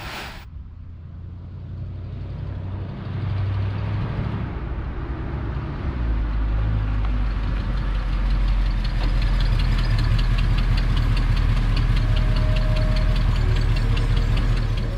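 1965 Ford Thunderbird's 390 cubic-inch V8 running, growing louder over the first several seconds and then holding steady.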